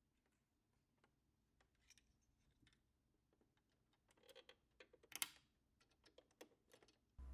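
Faint small clicks and ticks of fingers handling a sewing machine's drop-in bobbin and its clear plastic bobbin cover at the metal needle plate, with a sharper click about five seconds in.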